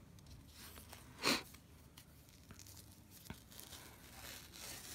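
Tape being pulled off the roll as it is wrapped around a thumb: one short rasp of peeling tape about a second in, then softer peeling noise building near the end.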